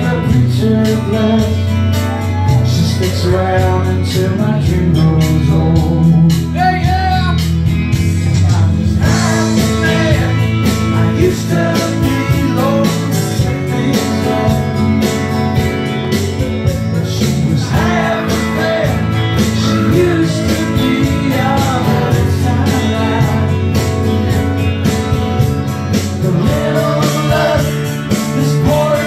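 A live song: a man singing lead over two strummed acoustic guitars.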